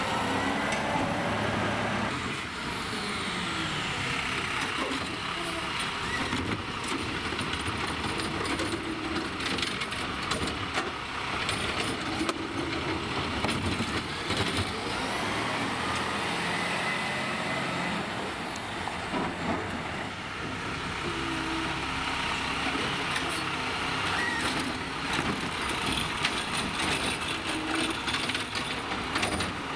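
Peterbilt McNeilus ZR automated side-loader garbage truck at work: the diesel engine runs under repeated clanks and knocks, with a rising and falling whine at times.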